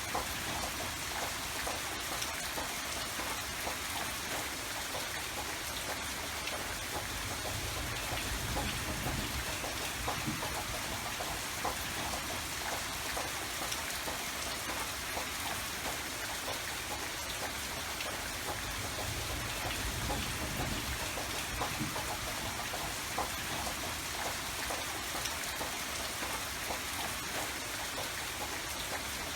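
Steady rain falling, with many small drop clicks over an even hiss and a low rumble underneath.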